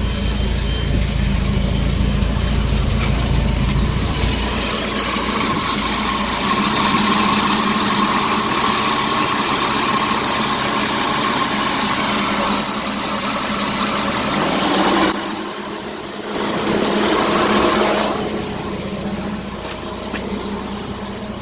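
High-amperage aftermarket electric radiator fan running with a steady rushing of air and a faint whine, over the engine. It is wired so that it pulls down the engine computer's ignition voltage.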